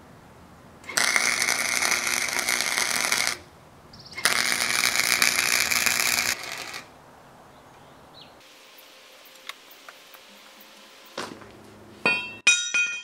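MIG welder laying two short welds on steel, a steady crackling sizzle about two seconds long each, with a brief pause between them. Near the end, steel pieces clank and ring briefly as they are set down on a concrete floor.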